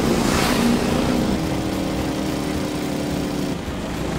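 Early Harley-Davidson motorcycle engine running at speed in a race, with a brief rush of noise about half a second in.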